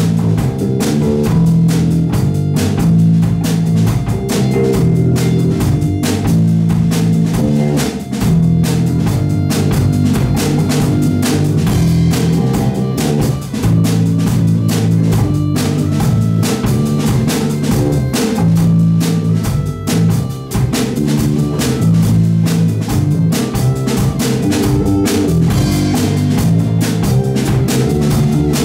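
Live improvised progressive rock from a trio: drum kit, guitar and keyboard playing together, with busy drumming and a repeating low riff.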